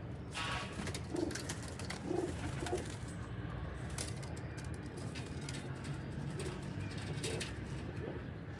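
Domestic pigeons cooing, a few low coos in the first three seconds and fainter ones later, with scattered short sharp noises among them.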